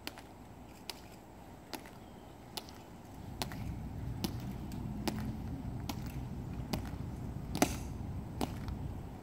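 Soldiers' hard-soled, metal-tapped dress shoes striking a stone plaza in slow, even marching steps: a sharp click a little under a second apart. From about three seconds in, a low rumble rises beneath the steps.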